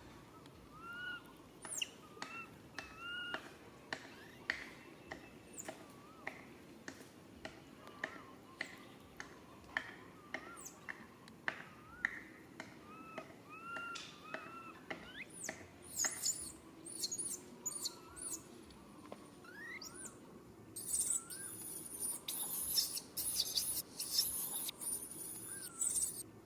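Baby monkey calling over and over in short rising-and-falling cries, with clicks between them, then breaking into a run of shrill screams near the end: distress calls for its mother.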